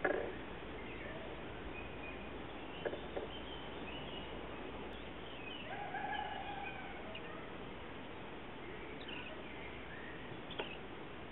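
Scattered short chirps and whistles of birds, with one longer, lower whistle about six seconds in. A few soft knocks sound near the start, around three seconds in and near the end.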